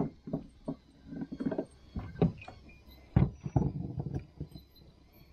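A string of irregular knocks and thumps, the loudest about two and three seconds in, as a freshly caught grouper is handled on the line against the boat's gunwale.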